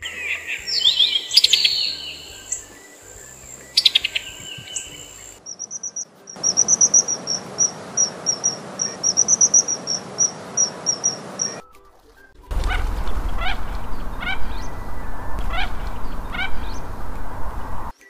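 A run of three bird-call recordings. First come summer tanager calls, a mix of chirps and sweeping notes. Then a common kingfisher gives a fast series of high, thin whistled notes, and near the end a mandarin duck makes repeated short whistles that drop in pitch, over a low rumble.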